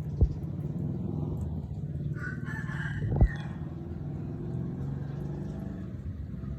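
A rooster crows once, about two seconds in, over a steady low rumble. Two short dull thumps stand out, one near the start and one as the crow ends.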